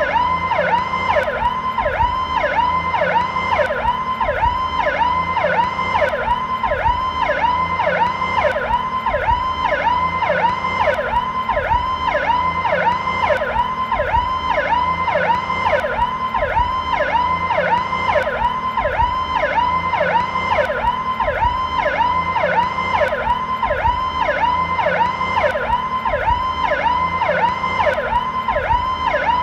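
American police siren on its Powercall tone, slow version: an electronic wail sweeping up and down in pitch over and over, about two cycles a second, steady and unbroken.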